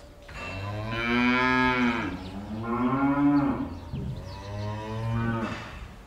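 A cow mooing: three long, low moos in a row, each rising and falling in pitch, with short breaks between them.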